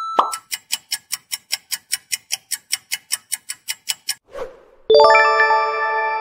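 Quiz countdown-timer sound effect: sharp clock ticks, about five a second, for about four seconds. A brief swoosh follows, then a bright ringing chime for the answer reveal.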